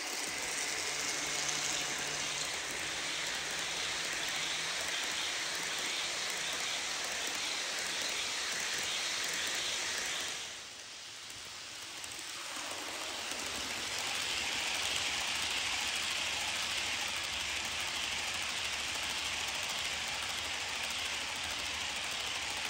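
HO scale model trains rolling along sectional track, a steady hiss of metal wheels on rail. It drops briefly about ten seconds in, then picks up again as a long train of coal hoppers passes.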